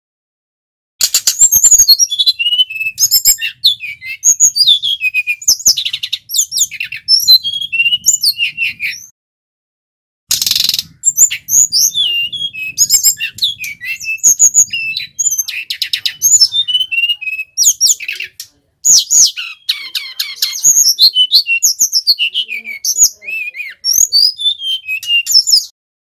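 Brown-chested jungle flycatcher singing a full, fast song of varied high chirps, whistled slurs and trills, in three long bouts broken by short pauses. The second bout opens with a brief harsh rasping note.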